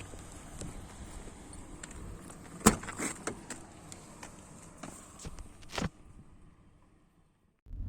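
Scattered light clicks and knocks at a parked car, like doors, keys and fittings being handled. The loudest knock comes about two and a half seconds in, with a few more around three seconds and six seconds. It then goes almost silent.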